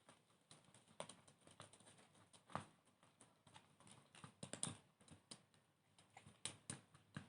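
Faint, irregular clicks and taps of a spoon stirring slime in a bowl, the slime thickening after activator has been added.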